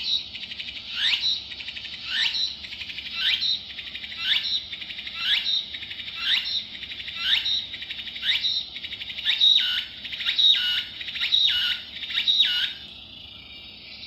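Recorded song of a tsukutsukubōshi cicada (Meimuna opalifera) played through the tiny speaker of a gacha-capsule cicada sound keychain. It is a bird-like run of about a dozen rising phrases, about one a second, which change shape in the last few and stop about a second before the end.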